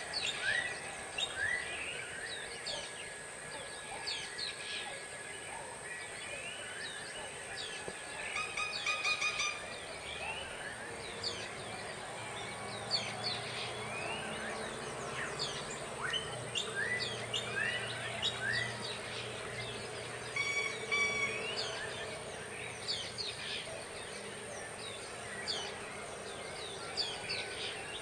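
Dawn chorus of many tropical birds singing and calling at once: a dense overlapping mix of short chirps and quick downward-sweeping whistles, with a rapid series of repeated notes about a third of the way in and again about three-quarters through.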